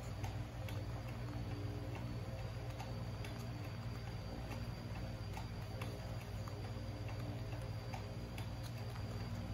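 Steady low hum with a thin high whine above it, and faint ticks about once or twice a second.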